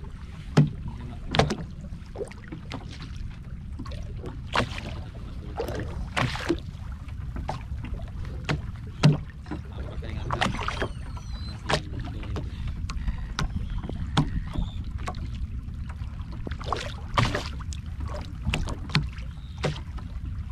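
Water sounds around a small boat: a steady low rumble with frequent irregular knocks and splashes.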